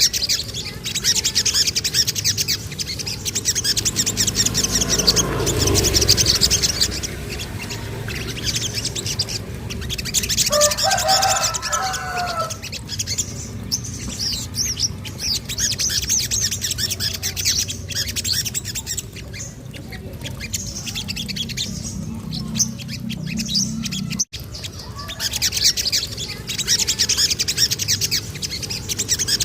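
A small songbird giving rapid, high-pitched chirping trills in repeated bursts, with a short lower warbling call about ten seconds in.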